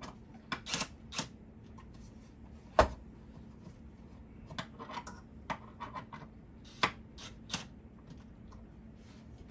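Irregular clicks and knocks of bolts and hardware being fitted into the wooden rails and legs of a loom, with one sharper knock about three seconds in.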